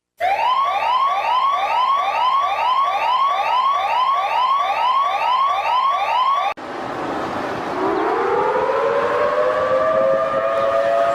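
Emergency alarm sirens. First comes a rapid electronic whoop-whoop siren, about three rising sweeps a second, which cuts off abruptly about six and a half seconds in. A hiss follows, and an air-raid siren slowly winds up into a steady wail.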